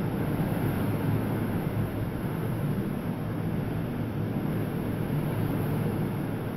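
Hurricane Irma's wind and heavy rain: a steady, deep rushing noise, with the wind buffeting the phone's microphone.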